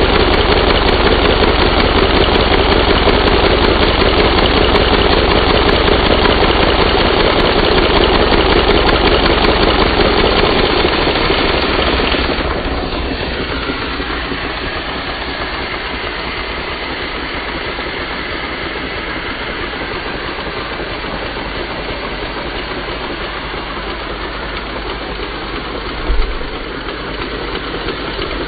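LEGO inline-four vacuum engine running on vacuum cleaner suction: the vacuum's steady drone mixed with the engine's fast, rhythmic clatter. About twelve seconds in the sound drops in level and thins, and there is a single short thump near the end.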